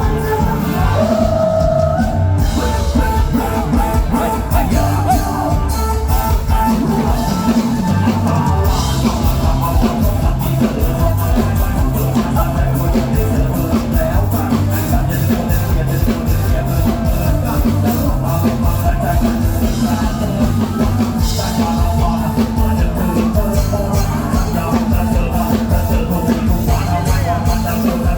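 Loud live band music with a drum kit keeping a steady beat, and singing over it.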